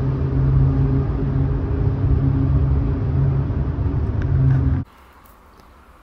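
Steady low drone of a car driving, heard from inside the cabin, with a constant engine hum under the road noise. It cuts off suddenly about five seconds in, leaving only a faint quiet background.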